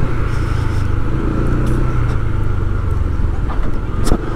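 A motor vehicle running on the move, a steady engine hum with road noise. A single sharp click sounds about four seconds in.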